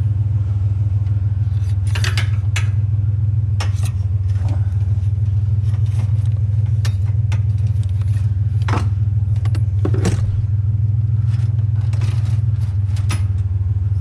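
Truck engine running with a steady low drone, overlaid by scattered light metallic clinks and rattles, a cluster about two to four seconds in and more around nine to thirteen seconds.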